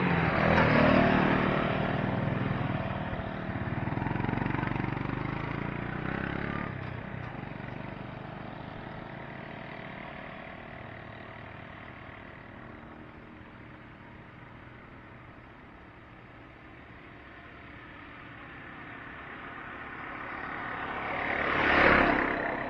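A motorcycle rides past close by about a second in, its engine running for several more seconds and fading into the distance. Near the end another vehicle approaches and passes close by, growing louder and then falling away.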